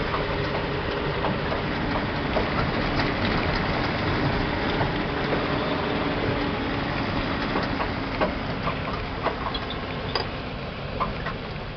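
Truck engine running under way, heard from inside the cab as it drives over a rough dirt road, with the cab rattling and sharp knocks in the second half.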